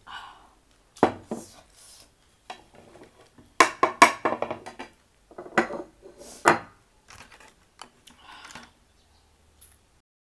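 Dishes and cutlery being handled: a series of sharp clinks and knocks, thickest about four seconds in.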